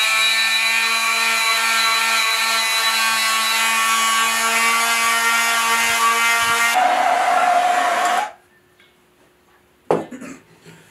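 Electric hand sander running steadily with a high whine while sanding an Osage orange walking stick. About seven seconds in its tone changes and it winds down and stops about a second later. A single sharp knock near the end.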